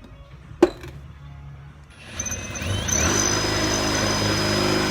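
Power drill running up to speed about two seconds in, its whine rising in pitch and then holding steady, as a worn drill bit works at enlarging a hole in a metal plate; it stops abruptly at the end. A single sharp knock comes about half a second in.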